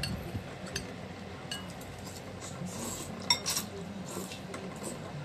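A metal fork and spoon clinking and scraping against a ceramic bowl in short, scattered taps. A little past halfway, one loud clink rings on briefly.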